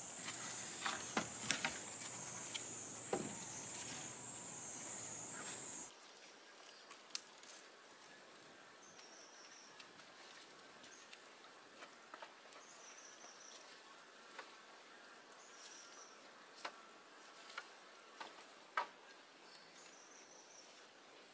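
Insects droning steadily at a high pitch, with scattered clicks, cutting off abruptly about six seconds in. After that comes quieter forest ambience, with occasional clicks and a few brief high chirps.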